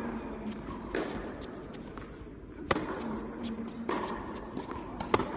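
Tennis ball being hit by rackets and bouncing on a hard court during a rally: four sharp pops about a second or more apart, the loudest about two-thirds of the way through and just before the end.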